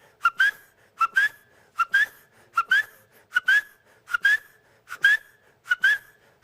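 A man's whistled imitation of a gallineta's call: a two-note phrase, a short lower note followed by a higher rising one, repeated in a steady rhythm about eight times, roughly once every three-quarters of a second.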